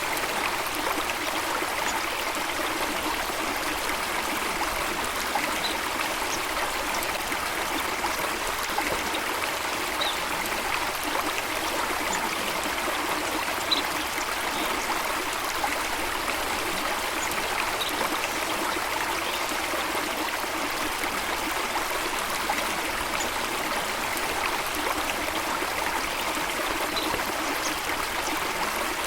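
Running water, a stream or waterfall, rushing and trickling steadily and evenly. A few faint, short, high chirps sound now and then above it.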